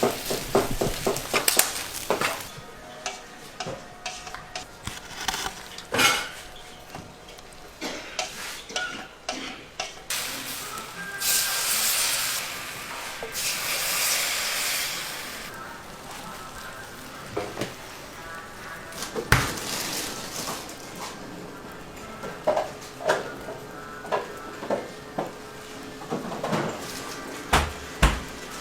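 Food frying in a hot pan, with a loud spell of sizzling from about eleven seconds in that lasts about four seconds. Metal utensils knock, clink and scrape against the pan or griddle, with a quick run of ticks at the start and scattered sharp knocks through the rest.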